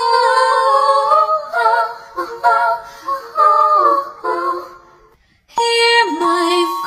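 Background music with a high sung melody, which fades out about four and a half seconds in. After a short silence, a different tune with held notes begins.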